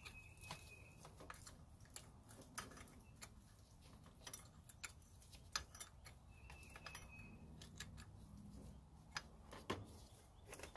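Faint, irregular metallic clicks of a wrench working a tight 12 mm bolt loose on a power steering pump bracket.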